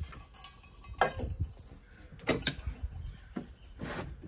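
Several light knocks and clatters of a steel cup and a plywood sink cabinet being handled, including its hinged door being opened. The loudest pair of knocks comes a little after two seconds.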